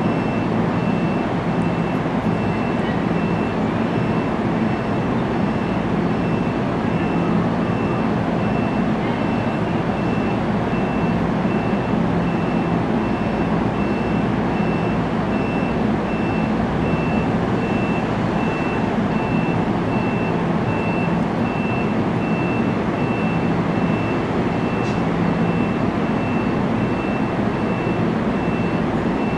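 NJ Transit bi-level commuter train standing at the platform: a steady loud rush and hum from its equipment, with a high beep repeating at an even rate.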